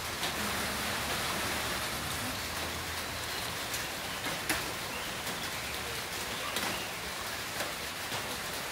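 Heavy rain falling steadily: a dense, even hiss of rain with scattered sharp drop hits, one louder about four and a half seconds in.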